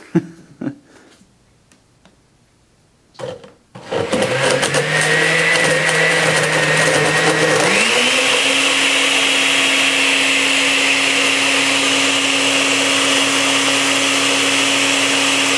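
A few knocks and clicks, then an Osterizer 8-speed blender with a metal-on-metal drive starts up about a quarter of the way in, blending a watery spice mixture. It runs steady, steps up to a higher speed with a jump in pitch near the middle, and holds there.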